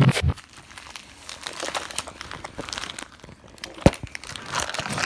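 Crinkling and rustling of handling close against the microphone, with scattered clicks and one sharp knock about four seconds in.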